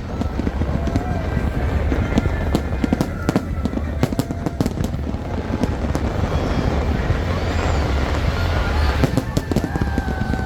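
Fireworks display: many sharp bangs at irregular intervals over a continuous low rumble of explosions.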